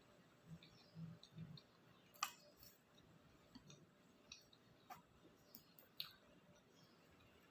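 Faint eating sounds from a person eating takoyaki: soft mouth sounds and a few scattered sharp clicks, the loudest about two seconds in, against near silence.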